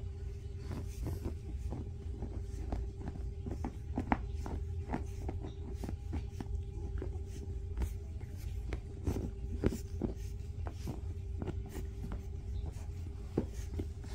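Pug digging and scratching at its fleece dog bed with its paws: irregular quick scratches and rustles, over a steady background hum.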